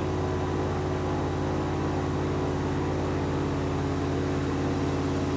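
Airboat's engine and large air propeller running at a steady, even speed while the boat cruises.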